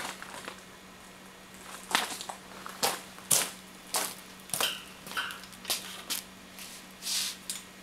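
Irregular sharp clicks, knocks and clatter, about one or two a second, as an oxy-acetylene cutting torch and its gear are handled before lighting, over a faint steady hum.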